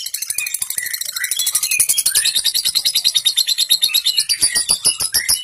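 Lovebird giving a long 'ngekek' chatter: a fast, unbroken run of sharp, high notes, about eight a second, with short gliding squeaks mixed in.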